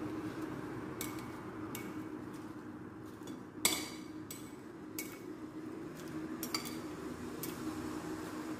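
Salad being tossed in a glass bowl: serving utensils clink against the glass in scattered strikes, the loudest a little under four seconds in, over a low steady hum.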